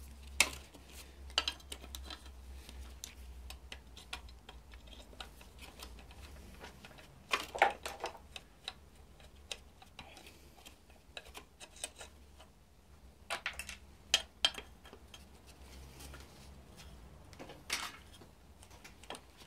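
Socket ratchet clicking and small metal clinks as exhaust manifold nuts are backed off their studs on a BMW M52TU/M54 engine, in a few short runs of clicks with pauses between.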